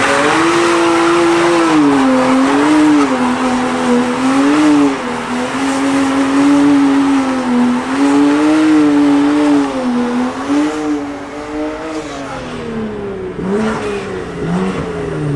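A vehicle doing a burnout: its engine is held at high revs, wavering up and down, over the hiss and squeal of spinning tires. About eleven seconds in the revs drop, followed by two short blips of the throttle.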